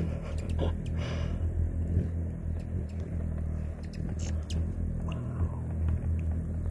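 Hummingbirds' wings humming steadily while they hover close in front of the feeder.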